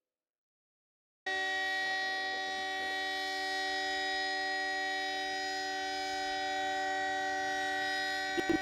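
Emergency alert alarm tone: after about a second of silence, a steady electronic chord of several pitches held together, with a brief louder blip just before it cuts off near the end.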